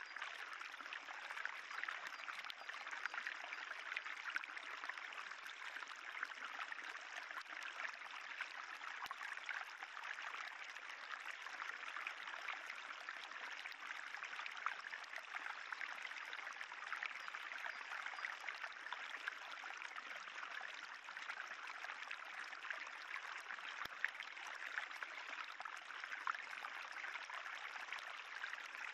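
Spring water trickling and running steadily along a moss-covered limestone tufa channel.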